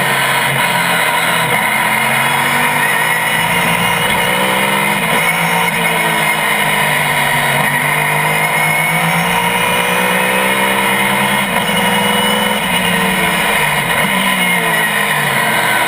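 GT-1 race car's V8 engine running hard at racing speed, its revs climbing and dropping several times as it accelerates, shifts and slows for corners.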